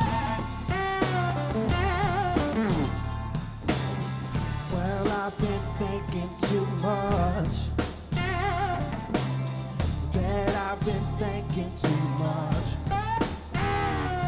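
A live blues-rock band plays: an electric guitar lead with bent, wavering notes over a drum kit and bass.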